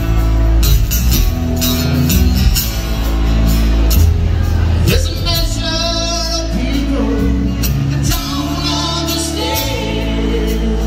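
Live band playing: drum kit, acoustic and electric guitars and bass. About five seconds in, a woman's singing voice comes in over the band, wavering with vibrato.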